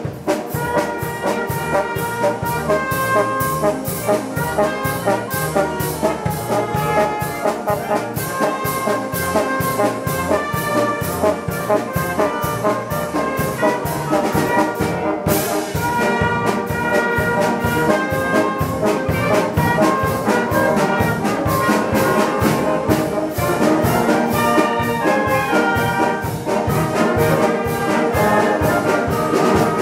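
Youth concert band playing: French horns, trumpets, trombones, clarinets, saxophones and flutes, over timpani, hand cymbals and a drum kit keeping a steady beat.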